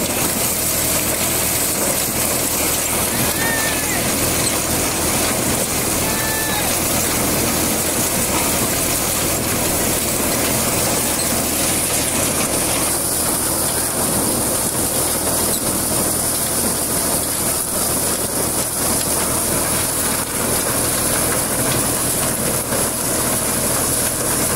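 Tractor-driven corn thresher running steadily as ears of corn, husks and all, are fed into it: a continuous dense mechanical din of the threshing drum shelling the cobs, with a high hiss, over the tractor's engine hum.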